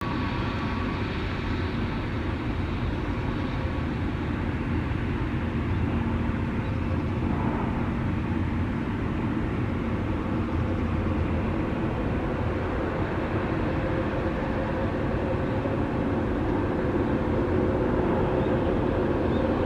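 Jet airliner engine noise: a steady rumble with a few held whining tones, growing slightly louder toward the end.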